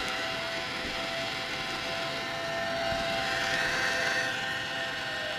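JVC GR-SXM915U S-VHS-ET camcorder's tape transport mechanism running with a steady whir and faint steady tones, a higher whine swelling briefly a little past the middle.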